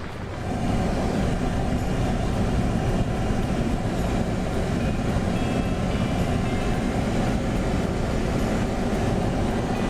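Jeep Cherokee driving on an unpaved road: a steady low rumble of tyres and road noise that comes up about half a second in and then holds even.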